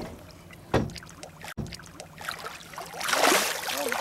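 Water splashing as a released striped bass kicks free beside a boat's hull, with a sharp knock about a second in and a louder rush of splashing about three seconds in. The boat's motor runs low underneath.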